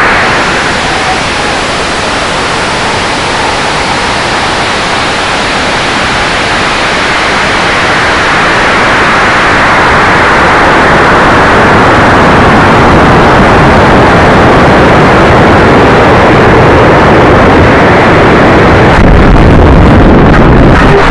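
A high-power rocket's motor firing and air rushing past its onboard camera as the rocket climbs: a loud, steady rushing noise throughout. It eases slightly a couple of seconds in, builds again, and a heavier low rumble comes in near the end.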